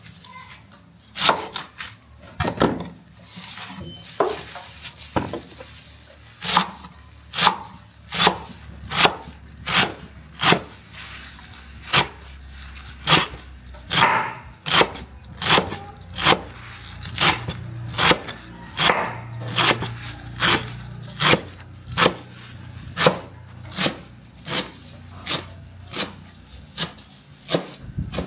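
Knife chopping food on a cutting board: a couple of slow strokes at first, then a steady rhythm of sharp knocks, about one and a half to two a second.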